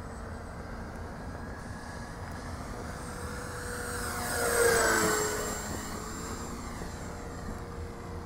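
Electric motor and propeller of a ParkZone Extra 300 radio-controlled aerobatic plane whining as it makes a low pass, growing louder to a peak a little under five seconds in, then dropping in pitch as it goes by and fading.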